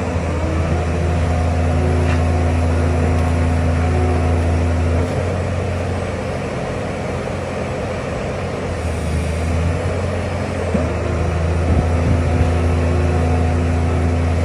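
Heavy diesel engine of a CFA rotary piling rig running steadily, a low drone that eases off slightly about five seconds in and picks up again a little after ten seconds.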